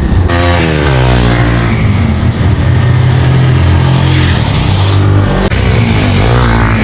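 Motorcycle engine running under way: its pitch drops over the first couple of seconds, holds steady, then rises again near the end as the rider opens the throttle.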